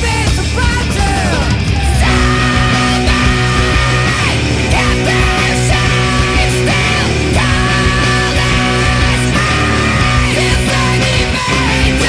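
Post-hardcore rock music played loud by a band of electric guitars, bass and drums, with guitar notes held in long sustained tones.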